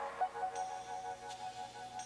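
Soft background music with long held notes, a higher note joining about half a second in.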